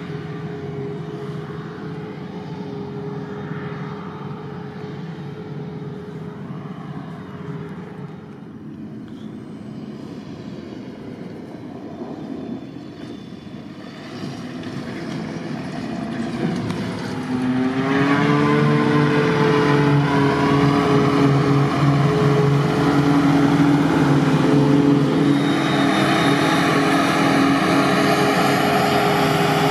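Claas Jaguar forage harvester and tractors working a grass field: a steady engine drone from the chopping harvester and a John Deere tractor hauling a silage trailer. A bit more than halfway through, a higher engine note rises and settles, and the sound becomes much louder: the Jaguar's engine and chopper droning steadily at working speed as it blows chopped grass into the trailer beside it.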